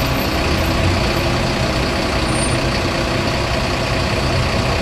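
Heavy engine idling in stopped city traffic: a steady low rumble.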